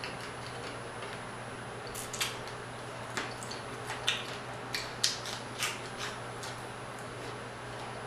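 Crispy fried croaker being pulled apart by hand to pick out the bones: the fried coating crackles and crunches in a string of short, sharp snaps, most of them between about two and six seconds in.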